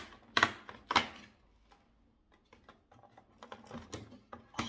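Cardboard advent calendar compartment and its packaging being opened and handled: sharp crackles and taps, the two loudest about half a second and a second in, then lighter scattered clicks, with another louder one near the end.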